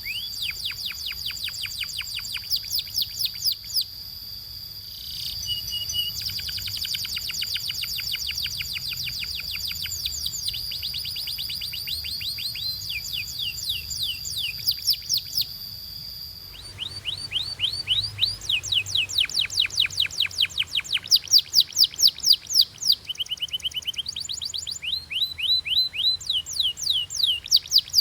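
Canary singing: rapid trills of quickly repeated sweeping notes in phrases with brief pauses. A steady high tone sounds underneath through the first half. About halfway through the recording changes abruptly to a louder bout of fast trills.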